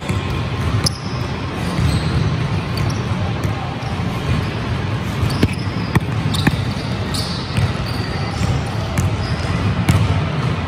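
Basketball bouncing on an indoor gym floor during one-on-one play: scattered sharp knocks with a few short high squeaks, over a steady low rumble of the hall.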